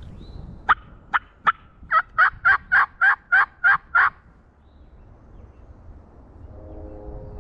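Turkey yelping: three short, sharp notes, then a run of eight evenly spaced yelps, about three and a half a second, ending about four seconds in.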